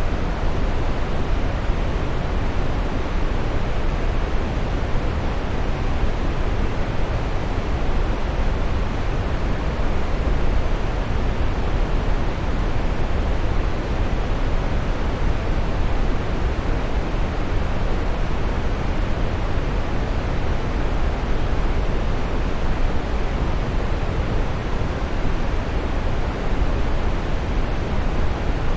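Waterfall: a steady, unbroken rush of falling water, deepest and heaviest in the low end.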